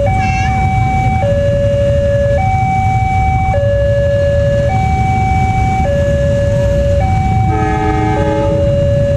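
Railway level-crossing warning alarm sounding a slow two-tone high-low signal, each tone held for about a second: the crossing is closed for an approaching train. Underneath is a steady low rumble of idling traffic, and near the end a horn sounds for about a second.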